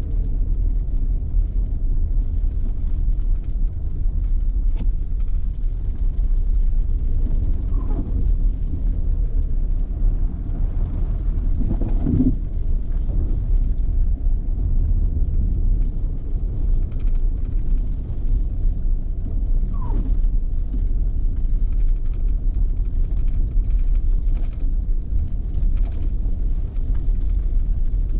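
Steady low rumble of a vehicle driving: road and engine noise, with a few faint short squeaks.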